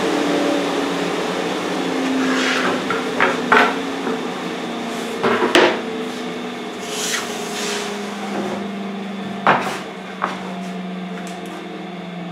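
Pine boards being handled on a table saw top: several sharp wooden knocks as they are set down and slid, over the steady hum of a running shop dust collector. A second machine tone slides down in pitch in the first few seconds.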